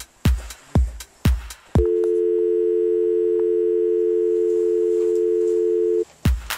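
An electronic beat of low thumps about twice a second, broken about two seconds in by a steady two-note telephone dial tone that holds for about four seconds and cuts off suddenly, after which the beat returns.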